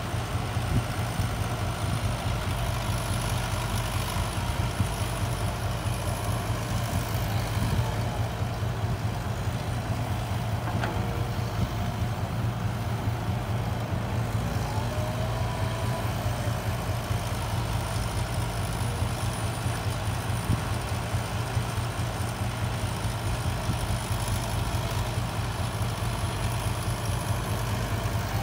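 Steady low drone of diesel engines: a Cat 312 hydraulic excavator working as it loads soil into a dump truck, with the Mitsubishi Fuso dump truck's engine idling beside it.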